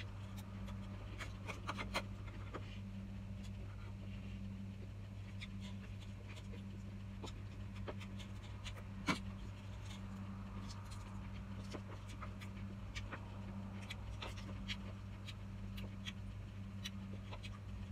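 Close-miked eating sounds: chewing and mouth noises of someone eating salad, with scattered sharp clicks and taps of a spoon and plastic bowls, one louder about nine seconds in, over a steady low hum.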